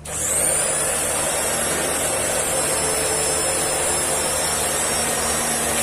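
Electric rotary fabric cutting machine running, its motor whining at high speed as the blade cuts through a 16-layer stack of fabric. The whine rises as the motor spins up at the start, holds steady, and starts to drop at the very end as it winds down.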